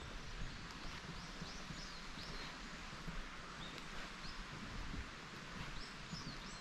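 Small forest birds calling with short, high chirps that come in quick little runs, over a steady hiss of outdoor air through the trees. A few soft footsteps thud on the bridge's wooden deck.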